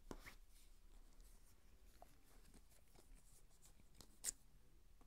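Near silence with faint rustling and ticking as a card-backed plastic blister pack is handled, and one short sharp click about four seconds in.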